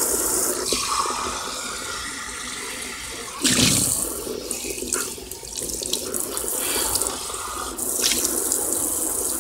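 Kitchen faucet spraying water into a stainless steel sink while a plastic cup is rinsed under the stream. The rush of water shifts as the cup moves in and out of the spray, with a louder splash about three and a half seconds in.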